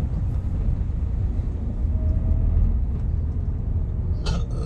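Vehicle driving along: a steady low rumble of engine and road noise, with a short sharp sound near the end.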